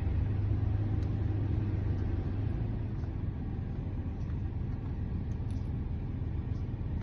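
Steady low mechanical hum or rumble, with a faint small click about a second in.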